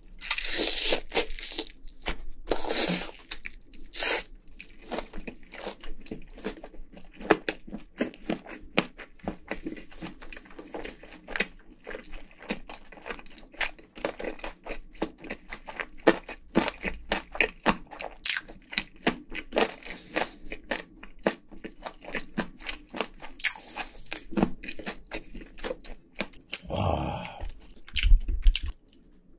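Close-miked crunching and chewing of crisp-battered Korean fried chicken: a bite at the start, then a steady run of sharp crunches as the crust is chewed. Near the end comes a louder spell of noise as a gloved hand picks more chicken from the plate.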